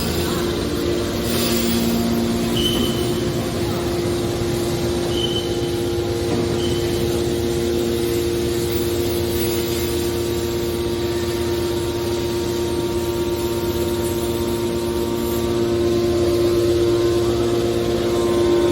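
Hydraulic scrap car baler running: a steady, pitched machine hum over a noisy bed, with three short high squeaks in the first seven seconds.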